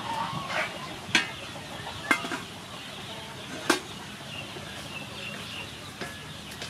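Three sharp metallic knocks from a lid and spatula on a metal wok as pig ears simmering in water are uncovered and stirred, with chickens clucking in the background.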